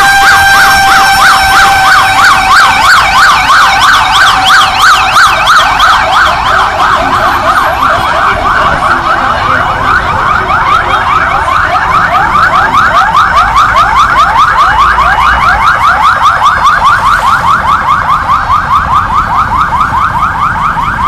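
Loud fire truck and ambulance sirens passing. A steady siren tone at the start quickly gives way to a fast yelp of about four rising sweeps a second, with more than one siren overlapping.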